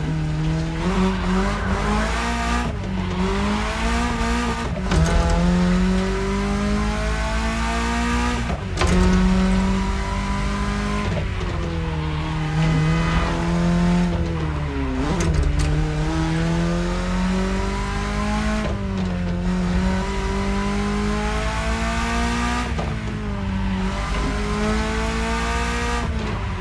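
BMW E30's engine pulling hard while the car is driven. Its note climbs steadily through each gear and drops sharply at every gear change, over and over.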